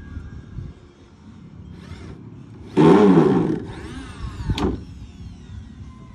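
Cordless drill running into a steel-framed plywood formwork panel: one loud burst of under a second about three seconds in, its motor pitch rising and falling as it bites, followed by a sharp click.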